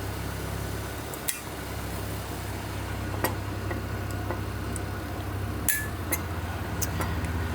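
Several sharp metallic clicks and clinks as brake pad retaining clips are snapped into a caliper bracket, over a steady low hum.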